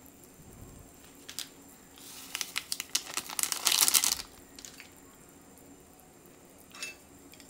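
Crinkling of a plastic ramen seasoning packet being handled and shaken out over a pot. The dense rustle runs from about two seconds in to about four, with a few brief crinkles before and after.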